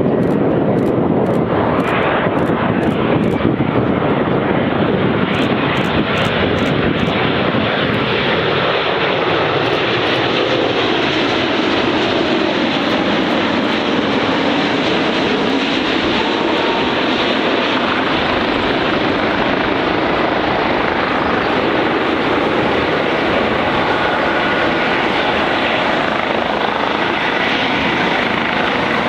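Jet engines of a Boeing 787-9 airliner passing low overhead: a loud, steady roar. Partway through, a sweeping tone falls and then rises in pitch as the aircraft goes by.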